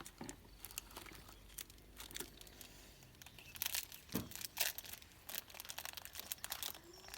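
Plastic packaging crinkling and rustling as a toy's wrapping is handled and opened, with a cluster of louder crackles around the middle.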